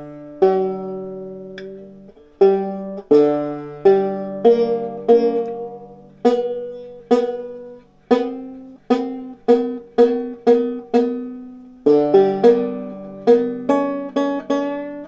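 Banjo being played: a slow run of picked notes and chords that ring and die away, growing quicker and busier near the end. It is being played to try out a newly swapped bridge.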